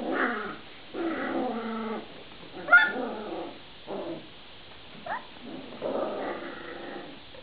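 Vizsla puppies play-fighting, giving a string of short growls and yips, with a sharp rising yelp about three seconds in as the loudest sound.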